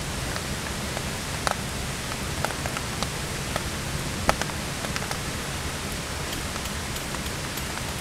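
Rain falling: a steady hiss with scattered sharp ticks of single drops hitting surfaces at irregular moments, one louder tick about four seconds in.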